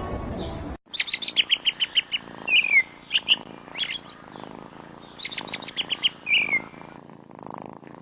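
Songbird singing: a quick series of high chirps falling in pitch, ending in a downward-slurred note, with the phrase given twice and single chirps between. It begins after a brief bit of music cut off suddenly near the start.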